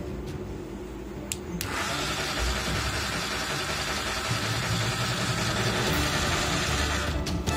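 Small electric motor of a homemade cardboard toy tractor whirring steadily as it spins the rear wheels. It starts suddenly about a second and a half in and stops shortly before the end, with background music before it.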